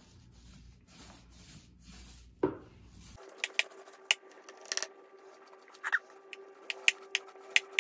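Small paint roller working wet oil-based paint across a flat panel: soft repeated rubbing strokes, then from about three seconds in, many sharp little sticky clicks and ticks over a faint steady tone.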